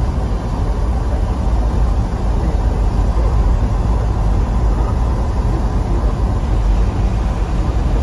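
Steady low rumble and road noise of a car driving on a snow-covered road, heard from inside the cabin.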